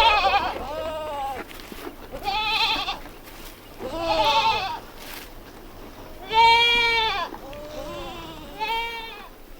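Goats bleating: about five separate, quavering calls in a row, at slightly different pitches.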